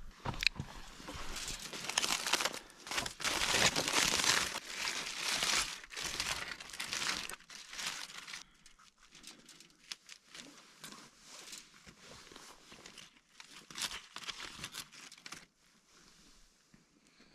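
Crinkling and rustling, dense and loud for the first several seconds, then fainter and broken into short rustles.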